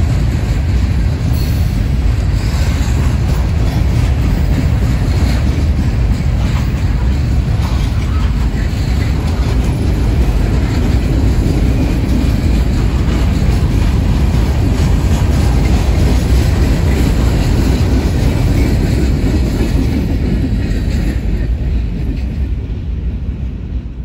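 Freight train cars rolling past at close range: a steady, loud rumble and clatter of steel wheels on rail. It fades away over the last couple of seconds as the end of the train passes.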